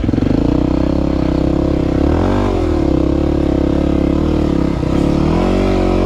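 Single-cylinder dual-sport motorcycle engine running hard under load, its pitch dipping and climbing again about two seconds in and again near the end as the throttle is worked.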